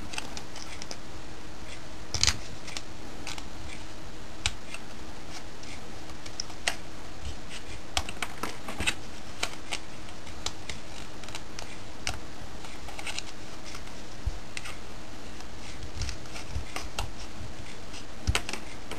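Scissors snipping pieces of a plastic ping pong ball: scattered sharp clicks and snips at irregular intervals, over a faint steady hum.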